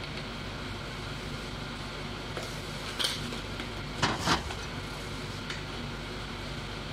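Spice jars and their lids knocking and clicking against the counter as they are handled: one click about three seconds in, then two louder knocks close together a second later, over a steady fan hum.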